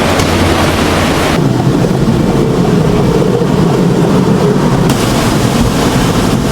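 Strong hurricane wind buffeting the microphone, a loud, steady rushing noise. About a second and a half in it changes abruptly from a hissing rush to a heavier, lower rumble.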